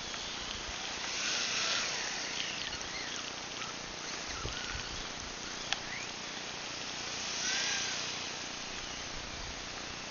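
Electric ducted-fan model jet passing twice, its whooshing fan whine swelling and fading about a second in and again near the end, over a steady hiss.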